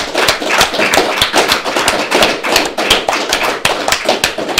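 A group of people clapping: dense, irregular applause.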